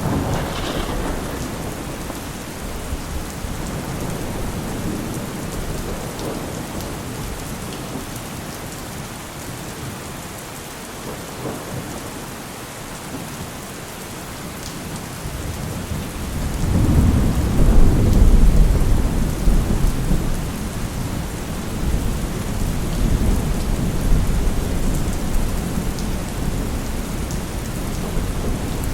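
Heavy rain falling steadily, with rolling thunder. A rumble fades over the first few seconds. A louder, deep roll of thunder builds about halfway through, peaks soon after and keeps rumbling in swells to the end.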